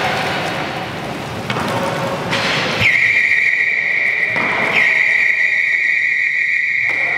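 A steady high-pitched tone comes in about three seconds in, sliding briefly down onto one held note. It restarts once about two seconds later and holds to the end. Before it there is general hall background noise.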